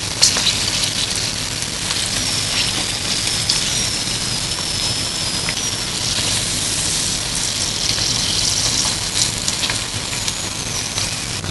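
Egg-and-flour-battered hot dog deep frying in hot oil: a steady sizzle with scattered crackles and pops.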